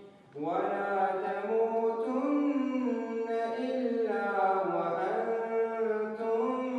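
A man's voice chanting Quran recitation, with long, drawn-out notes that slide slowly up and down in pitch. A new phrase starts after a brief pause at the very beginning.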